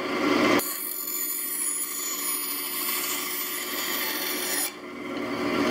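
Delta band saw running with its blade cutting through a small block of wood. The cutting noise starts about half a second in and stops about a second before the end, leaving the saw running free.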